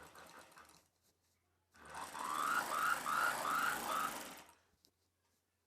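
Sewing machine running in one burst of stitching for just under three seconds, joining a blouse piece to its lining, with a regular pulsing in its sound. It starts about two seconds in after a few faint handling clicks.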